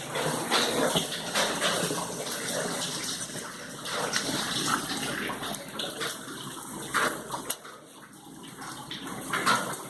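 Rain falling steadily, a continuous rush of water with scattered small knocks, easing for a moment late on.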